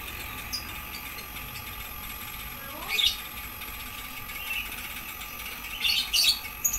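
Daikin inverter air conditioner's outdoor unit running under load: the compressor hums with a steady high electronic whine over it. Short chirps cut in about three seconds in and again near the end.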